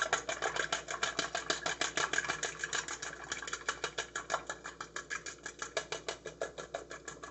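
Eggs being beaten by hand in a bowl, a utensil clicking quickly and steadily against the bowl's sides at about seven strokes a second.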